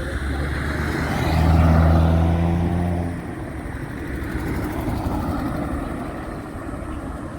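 A road vehicle's engine droning as it goes past, loudest about two seconds in and fading after about three seconds, over steady road and wind noise.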